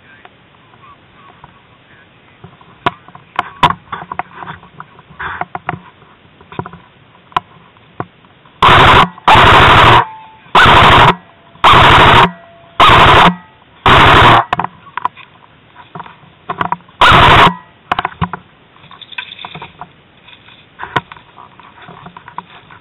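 Airsoft gun firing seven short full-auto bursts close by, about a second apart, loud enough to distort. Scattered faint clicks and knocks come before and after them.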